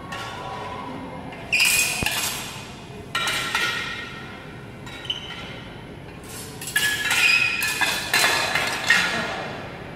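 Steel sparring swords and bucklers clashing, with each hit ringing and fading. There are single clashes about a second and a half, three seconds and five seconds in, then a quick flurry of several hits near the end.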